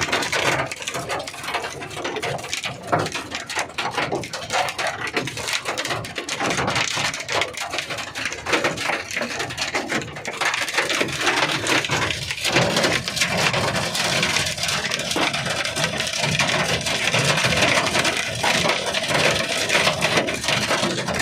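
Large hailstones pelting a vehicle's roof and glass, heard from inside: a dense, unbroken clatter of hard impacts mixed with rain. The hail is big enough to crack the vehicle's glass and top and let water in.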